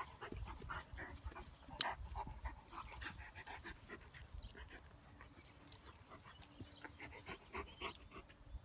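Two dogs play-fighting on grass: faint panting and scuffling, with many short rustles and snaps scattered through.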